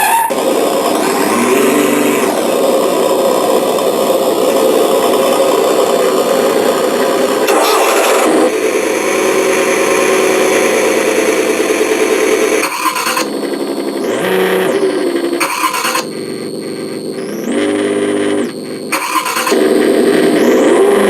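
Synthesized engine sound from an RC truck sound module, played through its single speaker. It revs up and down with the throttle several times, its pitch rising and falling, and changes abruptly a few times along the way.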